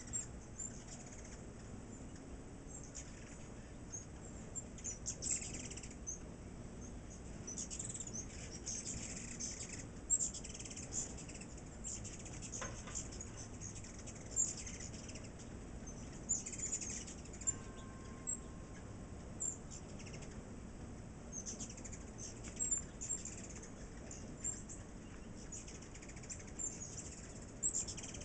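A crowd of ruby-throated hummingbirds making many short, high-pitched squeaky chips and chatters all the way through, the calls of birds squabbling over feeder ports, with the whir of their wings.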